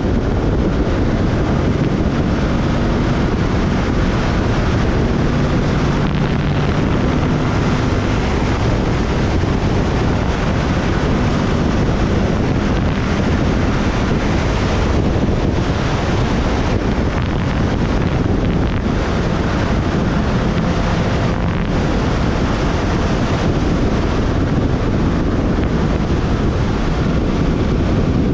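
Heavy wind rushing over the microphone of a moving motorcycle, with the bike's engine running steadily underneath.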